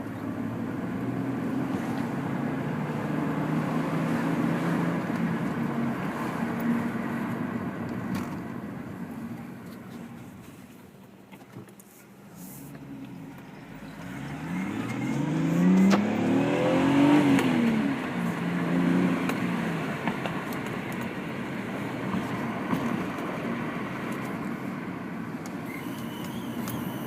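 Lexus IS300 heard from inside the cabin while driving: engine and road noise ease off to a lull about halfway through, then the engine picks up again as the car accelerates.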